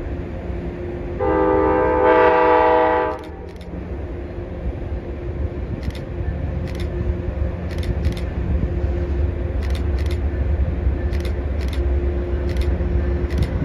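Amtrak P42DC diesel locomotive sounding its chord horn in one long blast of about two seconds, a second in. Then comes the low rumble of the train, growing slowly louder as it approaches, with faint sharp ticks every second or so.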